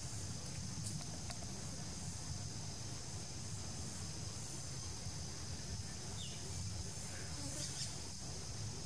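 Steady high-pitched insect chorus, with a low rumble underneath and a faint short falling call about six seconds in.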